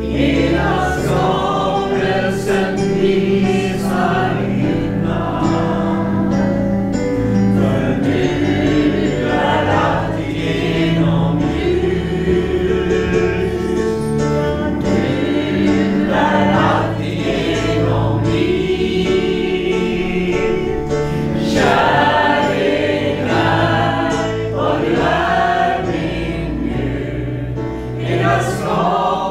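Voices singing a Swedish worship song together over sustained instrumental backing.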